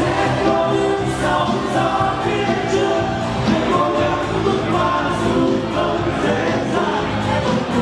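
Live pop song: several voices singing together in harmony over band accompaniment with a steady beat.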